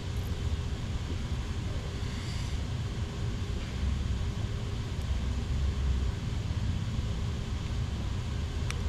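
Steady low rumble of outdoor background noise, with a faint click about halfway through and another near the end.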